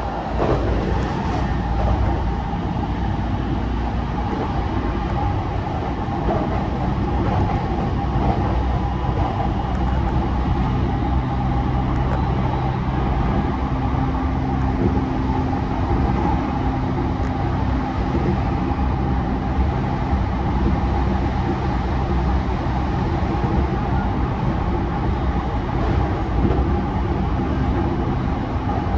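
Running sound inside a JR East E233 series 3000 electric multiple unit under way: the steady rumble of wheels on rail with a steady electric whine from the train's drive. It swells in the first second, then holds steady.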